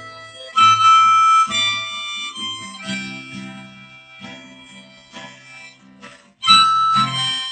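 Harmonica played in cupped hands over acoustic guitar accompaniment. A loud held note comes about a second in, the phrases grow softer and pause briefly, then the harmonica comes back loud near the end.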